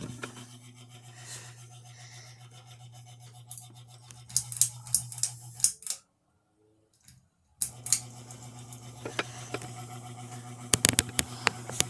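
Bladeless Hampton Bay Littleton ceiling fan motor running on high with a steady low hum, which the owner puts down to damage from years on a dimmer switch. Clusters of sharp scratchy clicks come about four seconds in and again near the end, and the sound cuts out completely for about a second and a half just after the middle.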